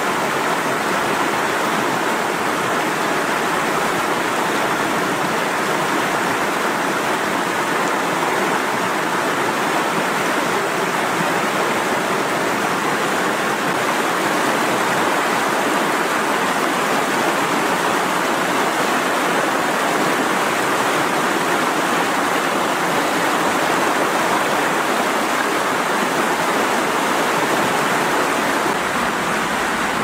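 Mountain river rushing steadily through whitewater rapids.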